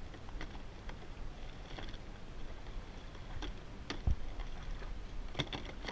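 Hand rummaging through a soft cooler bag of cloth and plastic bottles: scattered rustles and light knocks over a low, steady rumble.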